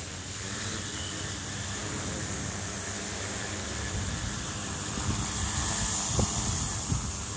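Quadcopter with 320kv motors and 15-inch carbon-fibre propellers hovering low and then climbing away: a steady propeller whir, with a few low thumps near the end.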